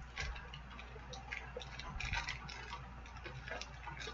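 Faint, irregular small clicks and crackles of a product package being handled and turned over in the hands.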